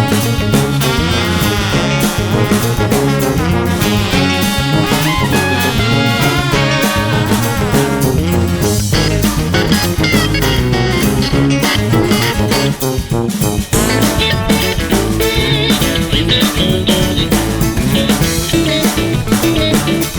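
Background music: an upbeat swing/blues-style track with guitar and a steady drum beat.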